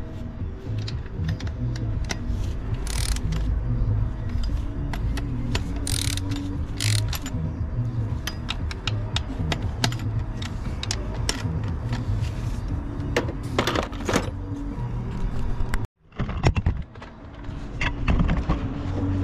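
Hand tools clicking and clinking against the metal bellhousing of a van's manual gearbox as it is worked on, a run of sharp clicks throughout. The sound cuts out for a moment near the end.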